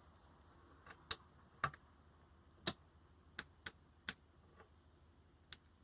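Scattered light clicks and taps of hand tools and metal parts being handled, about nine in all at uneven intervals, over a faint background hum.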